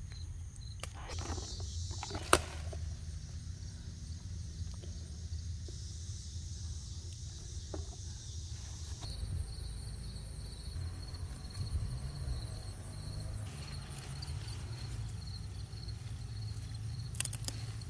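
Outdoor garden ambience: insects trilling steadily over a low rumble, with one sharp click about two seconds in.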